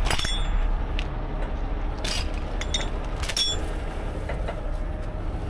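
Several sharp metallic clinks and jingles of hardware, each with a short ring, over a steady low engine rumble.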